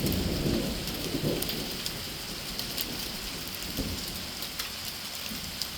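Hail and rain pelting down: a steady hiss dotted with many sharp little clicks of hailstones striking surfaces. A low rumble of thunder fades away during the first couple of seconds.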